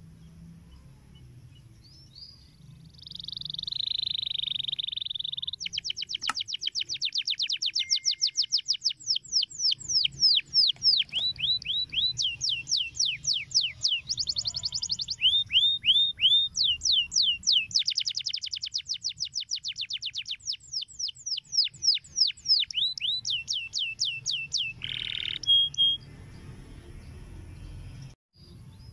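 Domestic canary singing a long, rapid rolling song. It opens with a held note about three seconds in, then runs into fast trills of quick downward-sweeping notes whose speed keeps changing, and stops abruptly a few seconds before the end.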